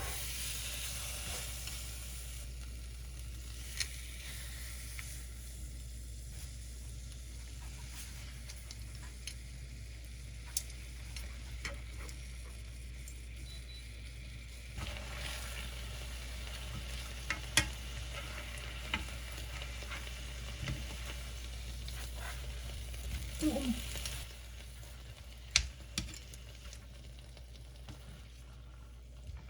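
Food sizzling as it fries in a pan, a steady hiss with scattered sharp taps and clinks of a utensil against the pan.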